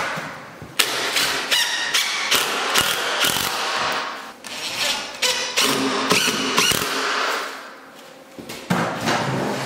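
Cordless drill driving an inch-and-a-quarter screw through a window-blind end bracket into the window frame. It runs in two spells, from about a second in to four seconds and again from about five to seven and a half seconds, with sharp clicks in among the motor whine.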